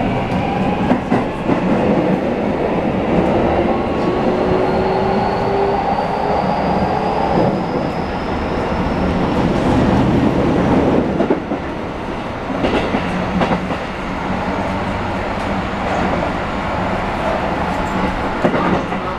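Interior running sound of a Keikyu New 1000 series electric train: the VVVF inverter and traction motors whine in several tones that rise in pitch as the train accelerates. Later the wheels rumble steadily on the rails, with a few rail-joint clacks a little past halfway.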